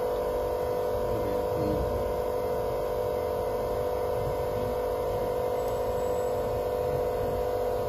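Frame dismantling machine running with its vacuum pump on: a steady, unchanging electric hum.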